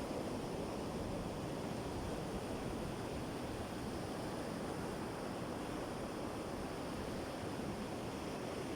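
Sea surf washing on the shore: a steady, even rush of water noise with no single wave standing out.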